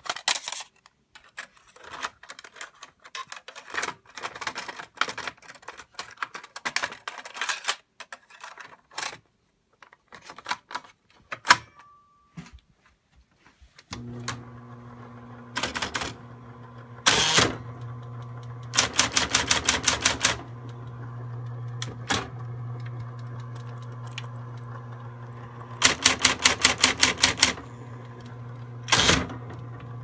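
Vintage Smith Corona electronic typewriter: irregular key clicks of typing for about fourteen seconds, with a short beep near the middle. Then a steady hum comes on, and over it come two quick runs of rapid, evenly spaced strikes and a few single louder bursts.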